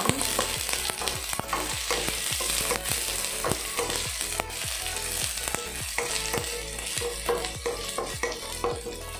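Chopped onions sizzling in hot olive oil in a stainless steel pot while a wooden spoon stirs them. The spoon knocks and scrapes against the pot about twice a second.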